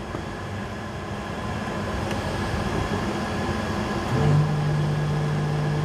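Steady drone of running precision air-conditioning machinery, with a low hum that drops out and comes back with a short rise about four seconds in.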